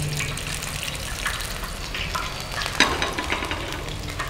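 Battered vegetable pieces frying in hot oil in a pan, a steady sizzle with crackles, and a light knock about three seconds in.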